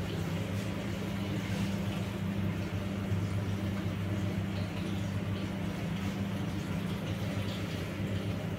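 Electric heating mantle under a large glass round-bottom flask giving a steady low electrical hum, over a faint even hiss.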